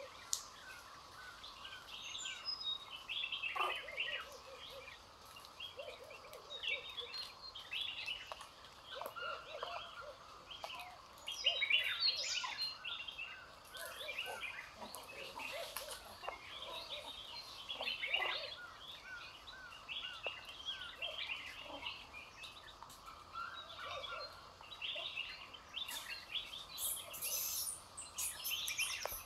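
Birds chirping and calling in a dense chorus of many short, high, overlapping calls, loudest about twelve seconds in, with a few brief rustles near the end.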